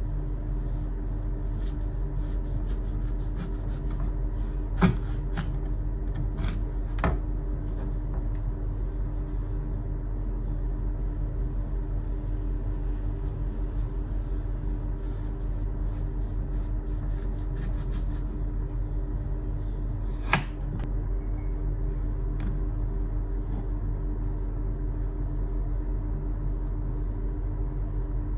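A steady low hum, with a handful of sharp knocks of a kitchen knife slicing a lemon against a plastic cutting board.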